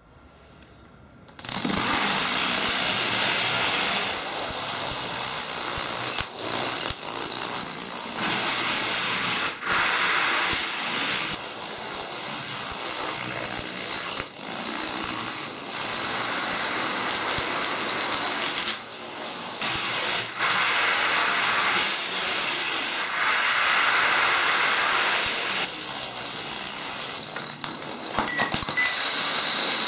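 Long chains of domino tiles toppling: a dense, continuous clatter that starts about a second and a half in, with a few brief breaks.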